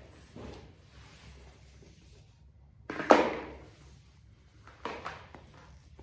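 A sharp clatter about three seconds in, the loudest sound, and a lighter knock about five seconds in, over faint room noise.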